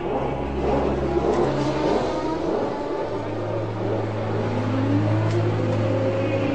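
Racing car engine running, with a rise in pitch about four seconds in as it revs up.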